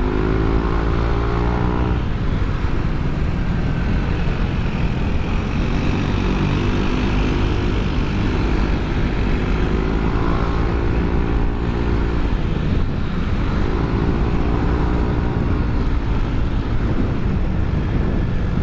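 Yamaha NMAX 155 scooter's single-cylinder engine running through an aftermarket ROB1 Racing exhaust while riding, a steady low rumble with a pitched exhaust note that rises in several stretches as the throttle is opened.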